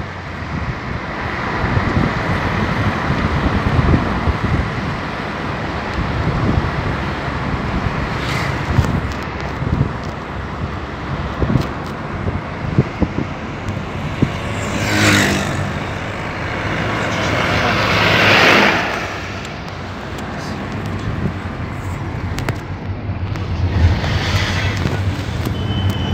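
Steady road and engine noise of a moving car, heard from inside the cabin, with two louder swells of noise a little past the middle.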